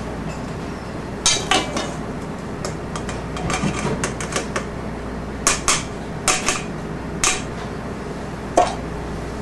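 A stainless steel mesh sieve of flour clinking and knocking against the rim of a stainless steel mixing bowl as flour is sifted into the batter. There are a dozen or so sharp metallic taps at uneven intervals, with the loudest clusters about a second in and a little past the middle.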